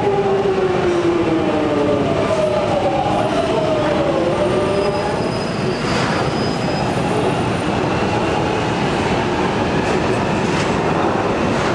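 London Underground Jubilee line train (1996 Stock) running in at the platform, its motor whine falling in pitch over the first few seconds as it slows, then a steady rumble with a sharp knock about halfway through.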